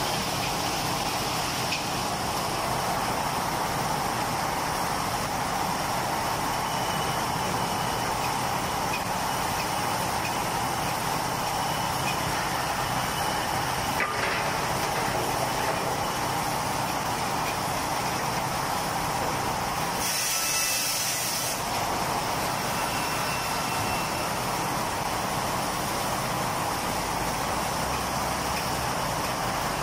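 Automatic log cutting line running, its large circular saw and log conveyors making a steady machine noise. There is a short hiss about two-thirds of the way through.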